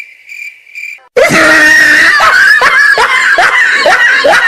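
A high cricket-like chirp pulsing about three times a second stops about a second in. It gives way to a very loud screaming sound effect full of short, repeated rising yelps.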